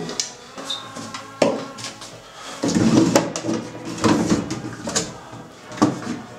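Hurried rummaging through bathroom shelves: toiletry bottles and small objects clattering, with sharp knocks throughout and the loudest burst of handling about three seconds in. Background music plays under it.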